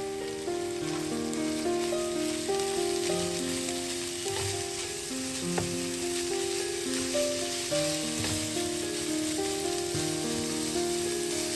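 Food sizzling steadily in a hot frying pan, with a few light clicks, over gentle background piano music.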